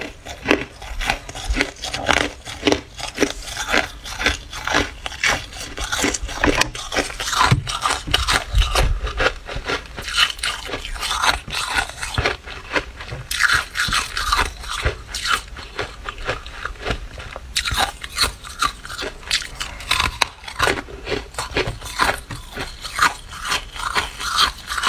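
Freezer frost crunching close up: a dense, irregular run of crisp crunches and scrapes.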